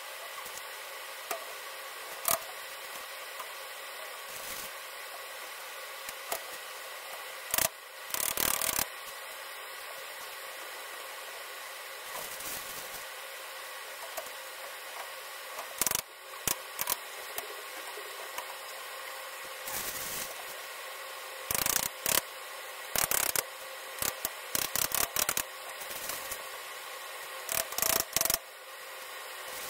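Plastic cube-cabinet panels and connectors knocking and clicking as they are pushed together, in scattered clusters of sharp knocks over a steady background hiss.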